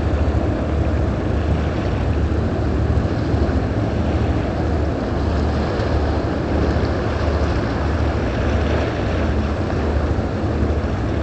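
Steady low rumble of a boat engine, with wind and water noise.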